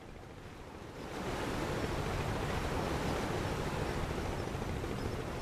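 Steady rushing noise of sea water and wind, swelling up about a second in and then holding even.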